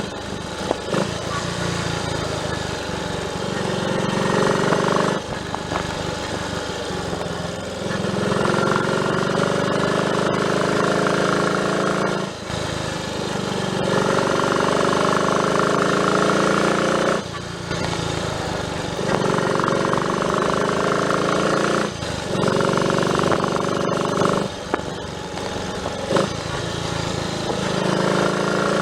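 Triumph Tiger Cub's single-cylinder four-stroke engine running under way on a ride, its note breaking off briefly every few seconds and then picking up again.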